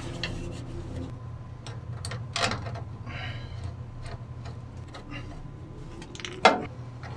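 Small metal clicks and knocks of cable lugs and terminal hardware being handled and fitted onto the terminal posts of an electrical box, with two louder clacks, one about two and a half seconds in and one near the end. A steady low hum runs underneath.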